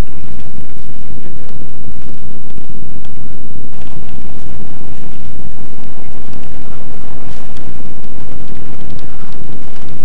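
Passenger train carriage running noise: a steady rumble with a rush of wind on the microphone, so loud that the recording is clipped.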